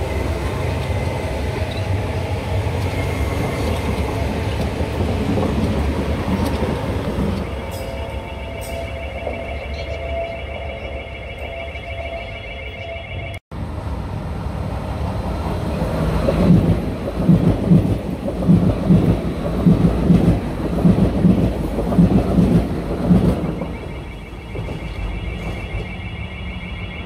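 Athens Metro Line 1 trains running on the track: a loud rumble as one passes close by, then, after a cut, rhythmic wheel knocks about one and a half a second as another train runs past before easing off. A high pulsing electronic alarm tone sounds in the middle and again near the end.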